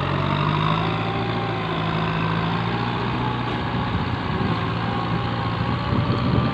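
Farm tractor's diesel engine running at a steady pitch while it pulls a disc harrow through a flooded rice paddy.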